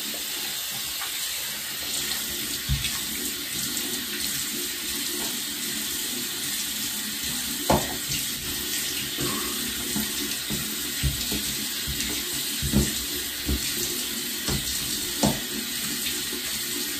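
Bathroom faucet running steadily into a sink while a face is rinsed with handfuls of water, with a few short splashes standing out over the running water.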